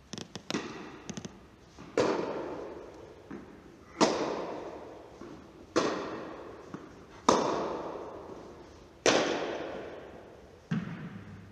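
Tennis ball struck by rackets in a rally, five loud hits about every one and a half to two seconds, each ringing out in the echo of a large indoor tennis hall. Lighter taps, likely ball bounces, come near the start and near the end.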